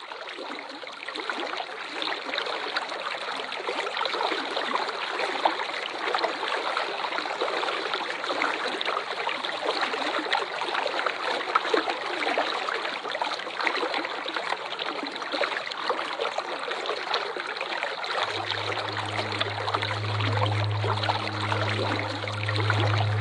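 Waterfall: a steady rush and splash of falling water, fading up over the first couple of seconds. From about 18 seconds in, a steady low hum joins underneath.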